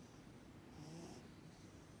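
A cat breathing faintly with a wheezy, rasping sound on a breath near the middle, the breathing of feline asthma.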